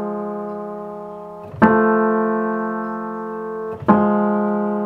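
Acoustic piano playing two-note intervals, a tempered major third and a minor third in the F3–A3 region, struck in turn for comparison. Two fresh strikes come about 1.6 and 3.9 seconds in; each chord rings and fades away, with the slow beating of a tempered third.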